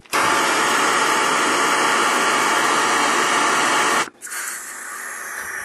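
Handheld propane torch burning with a loud steady hiss, cut off abruptly about four seconds in, followed by a quieter hiss.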